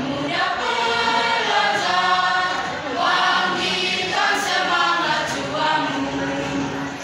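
A mixed choir of high-school students singing a march, the voices holding some notes for a second or more.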